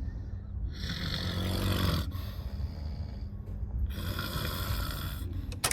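Men snoring in a train carriage: two long snoring breaths about three seconds apart over a steady low hum. A sharp click comes right at the end.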